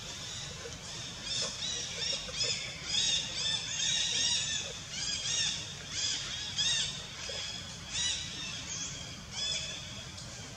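Young long-tailed macaque giving short, high-pitched squeals, each rising and falling, coming two or three a second in irregular runs from about a second in.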